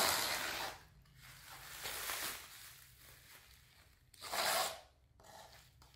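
Clear plastic stretch wrap and packing tape being pulled and torn off a parcel by hand: crinkling, tearing rustles in a few bursts, the loudest about four seconds in.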